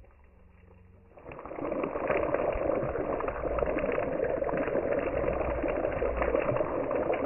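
Fish frying in hot oil in a pot over a wood fire, sizzling and crackling steadily. It starts about a second in, after a quiet moment.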